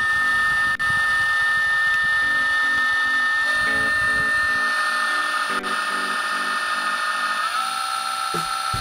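Repaired drive and impeller motors of a Maytronics Dolphin pool-cleaning robot running under test, powered out of water, with a steady electric whine. The pitch shifts about a third of the way in and steps down near the end.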